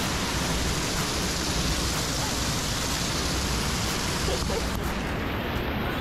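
Steady rush of waterfall water pouring and splashing over rock close to the microphone.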